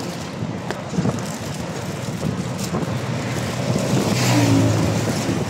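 Ride noise from a moving vehicle: steady engine and road rumble with wind, and a plastic bag crinkling as it is handled. About four seconds in, an engine briefly gets louder.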